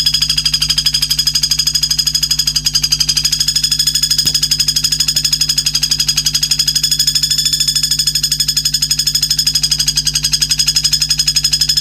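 Loud, high-pitched trill pulsing evenly about eight times a second over a steady low hum, starting and stopping abruptly: a recorded isian (filler song) track of the kind played to train white-rumped shamas.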